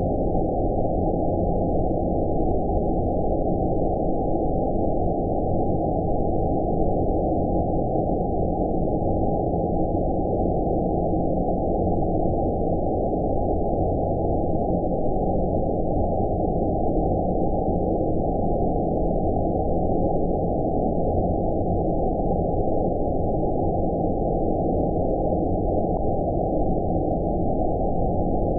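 Continuous synthetic 'outer space' ambient noise: a steady, deep, muffled noise with all the highs filtered away, unchanging in level.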